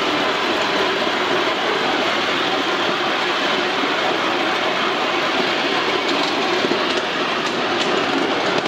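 Miniature live-steam locomotive standing, with a loud, steady hiss of steam.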